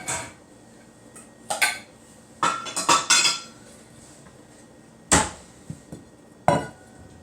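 A bowl and other dishes being handled and set down on a kitchen counter: a series of separate knocks and clinks, some briefly ringing. The loudest comes about five seconds in.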